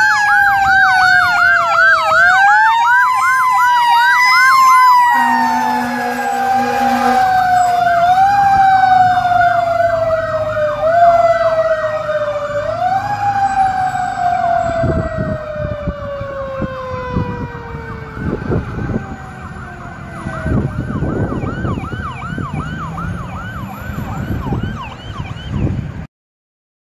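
Fire apparatus sirens: a Q mechanical siren winding down in a long falling wail, pushed back up briefly several times, over a fast electronic yelp siren, with a low steady horn blast about five seconds in. The sirens fade slowly and cut off suddenly near the end.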